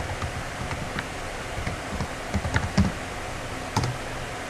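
Typing on a computer keyboard: scattered, irregular keystrokes, a few of them louder, over a low steady hum.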